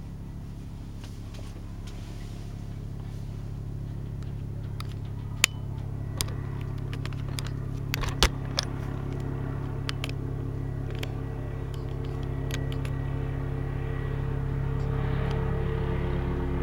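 Helicopter flying overhead, its low rotor and engine drone growing steadily louder as it approaches. A few sharp clicks near the middle.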